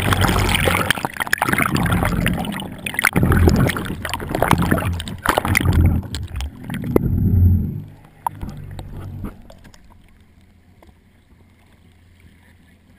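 Seawater churning and sloshing around a partly submerged camera, with knocks and splashes against it; the turbulence dies away about eight seconds in, leaving faint lapping water.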